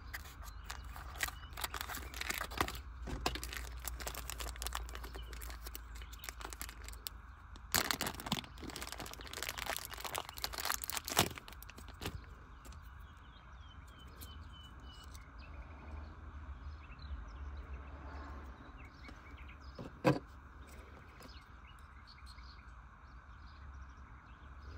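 Hands handling and working on small plastic parts: irregular clicks, crackles and rustling, busiest in the first half, with one sharp knock about twenty seconds in, over a steady low hum.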